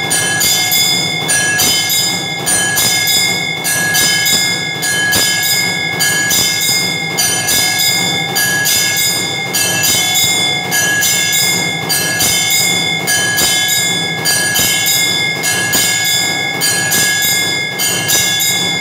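Temple bell rung over and over in a steady rhythm during aarti, each stroke ringing on into the next.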